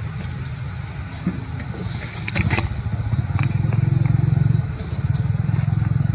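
A small engine running steadily as a low rumble that swells for about a second midway, with a brief cluster of sharp clicks about two and a half seconds in.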